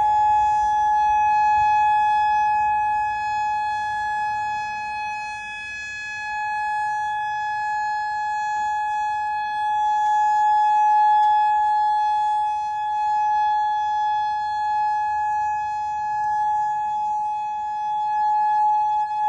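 Outdoor civil-defense warning siren sounding one steady held tone, its loudness rising and falling slowly.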